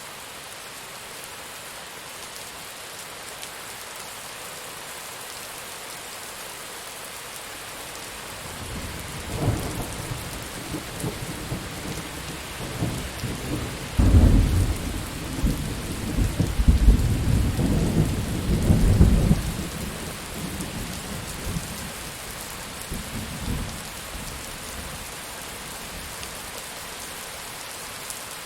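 Steady rain with a roll of thunder. The low rumble builds about nine seconds in and is loudest from about fourteen seconds for some five seconds, then fades, with a last weaker rumble a few seconds later.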